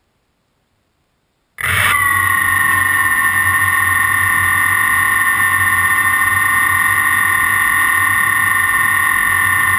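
Quadcopter motors and propellers spinning up suddenly about a second and a half in, then running at a steady high whine while the craft sits on the ground.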